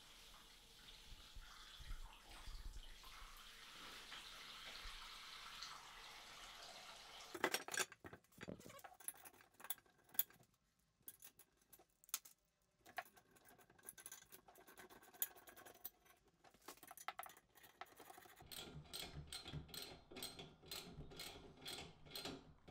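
Faint water running into the sink basin, stopping about seven seconds in. After that come scattered light clicks and clinks of metal plumbing fittings and tools being handled under the sink, coming more often near the end.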